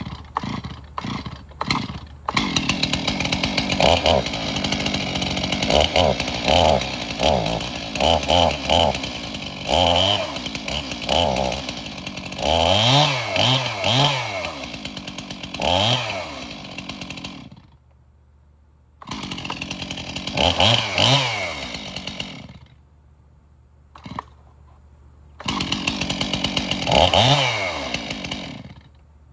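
Stihl Farm Boss two-stroke chainsaw being started: it sputters a few times, catches about two seconds in and runs with repeated throttle revs up and down. It cuts out twice and is started again each time, revving once more before stopping near the end.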